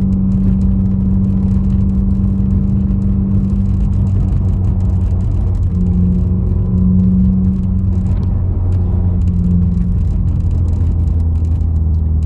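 Subaru WRX's turbocharged FA20DIT flat-four running under way with road rumble, the engine tone holding steady with small shifts in pitch midway; no misfire can be heard in it.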